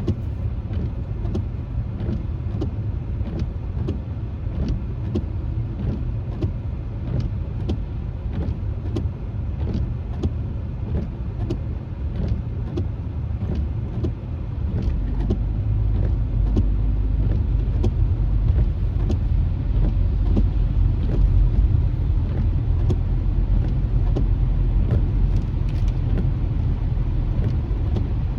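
Car cabin noise on a wet road: a steady low rumble of tyres and engine, with scattered sharp ticks of raindrops hitting the windshield. The rumble grows louder about halfway through.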